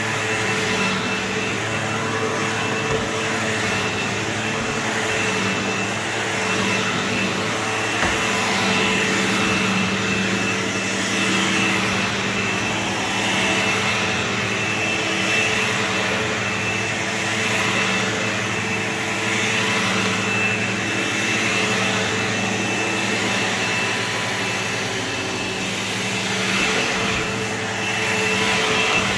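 Sebo X4 upright vacuum cleaner running steadily on carpet, a constant motor hum with a high whine and small swells in loudness as it is pushed back and forth.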